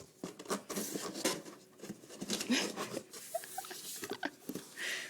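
Scratching and rustling of a small child shifting about inside a closed cardboard box, a run of short irregular scrapes and taps, with a few faint brief squeaks in the middle.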